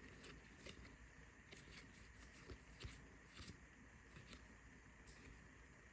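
Near silence with a series of faint, irregular clicks and slides of trading cards being handled and flipped through one by one.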